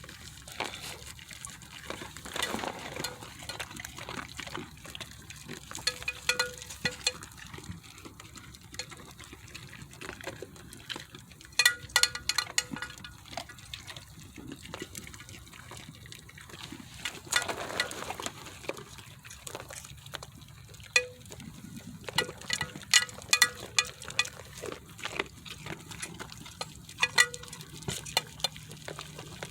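Goats drinking and jostling at a water container: water sloshing and splashing, with scattered clicks and knocks that come in clusters.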